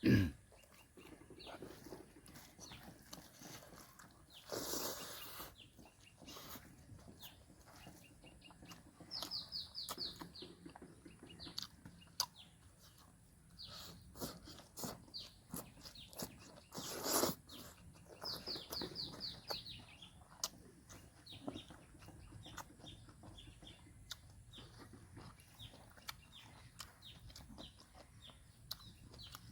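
Small clicking mouth and chewing sounds of someone eating, with two louder noisy bursts. A bird calls twice, each time in a quick run of about five high descending notes.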